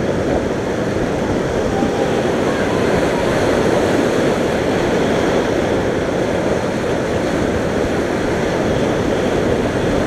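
Whitewater rapids rushing loudly around an inflatable raft, a steady, unbroken rush of churning river water.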